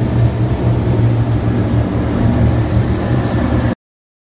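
Fishing boat's engine running at speed, a steady low drone mixed with the rush of the wake. It cuts off abruptly near the end.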